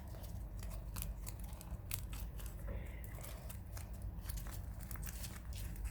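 Buttons of a simple dimple fidget toy being pressed, a series of quick, sharp, irregular clicks, about two or three a second.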